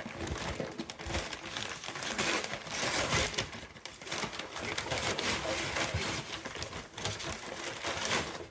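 Plastic packaging crinkling and rustling as it is handled, a dense irregular crackle that goes on throughout.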